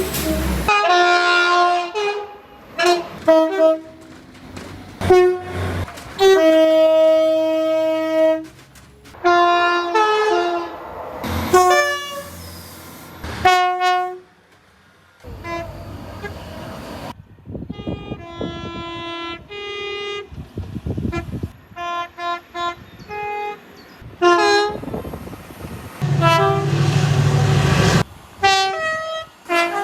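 Train horns sounding in a run of separate clips: many short toots and a few longer blasts, each a chord of several notes, the longest lasting about two seconds. Between some of the horns there are stretches of train running noise.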